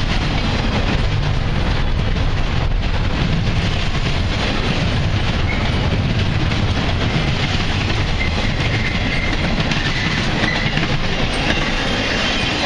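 Double-stack intermodal container train's well cars rolling past at close range: a steady, loud noise of steel wheels on rail. A faint high wheel squeal comes and goes in the second half.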